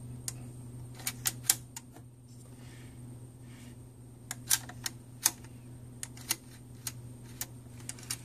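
Sharp, unevenly spaced clicks and clacks of the filter-cube slider rod on a Nikon TS100 inverted microscope being worked in and out, over a steady low hum. The slider is not seating fully, a sticky mechanism that the specialist thinks needs cleaning and lubricating.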